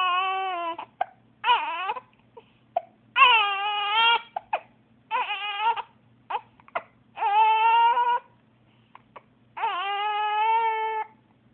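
Baby crying in six strained wails of up to about a second and a half each, with short sharp hiccups in the gaps between them.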